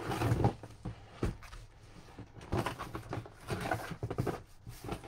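Cardboard box and packing paper being handled: irregular rustling and crinkling with light knocks and scrapes, in clusters at the start and again in the middle.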